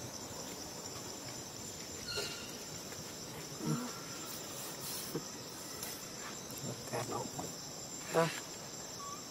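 Steady high buzzing of insects, with a few brief squeaky calls from macaques, the loudest about a second before the end.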